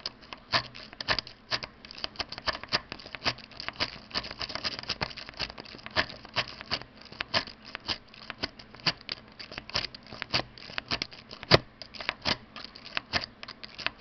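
Quick, irregular metallic clicking and rattling as a half-diamond pick is zipped rapidly in and out along the pin stack of a 6-pin Yale mortise cylinder fitted with custom security driver pins, with a tension wrench held in the keyway. There are many clicks a second and one louder click about eleven and a half seconds in.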